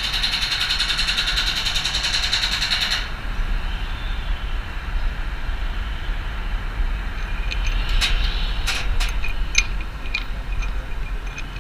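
Wind buffeting the microphone in a steady low rumble, with a bright hiss that cuts off about three seconds in. Near the end comes a quick run of sharp metal clinks and taps, a few with a short ring, from gloved hands and steel bolts on the spire's bolted flange.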